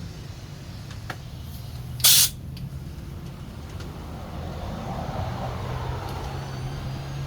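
A short, loud hiss of compressed air about two seconds in, over a steady low hum.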